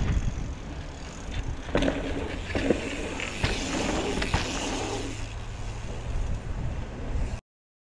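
Mountain bikes riding through dirt jumps close by: tyres rolling and scuffing over packed dirt, with several sharp knocks as the bikes land, over a low steady rumble.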